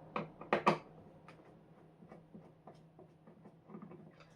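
A few sharp clicks and taps in the first second, then scattered faint small clicks: handling noise of hard objects.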